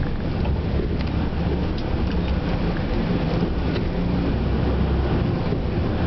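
Tour bus on the move, heard from inside the cabin: a steady low engine and road rumble.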